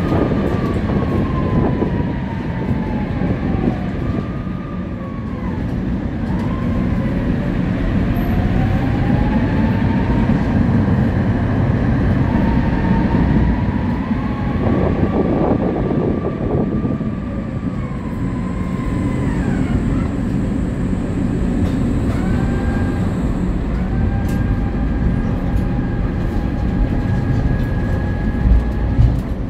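Tram riding along its rails with a steady low rumble. Over it runs an electric motor whine that glides down and back up in pitch several times, then holds two steady tones near the end.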